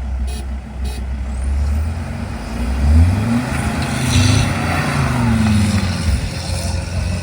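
4WD engine straining in soft beach sand during a bogged-vehicle recovery. It runs with a low steady rumble at first, then revs up and down several times from about two and a half seconds in.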